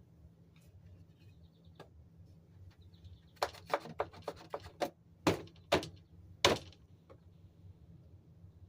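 A quick series of about a dozen sharp clicks and knocks, starting about three seconds in and ending with the loudest ones, over a low steady drone that the uploader attributes to a grocery store exhaust vent.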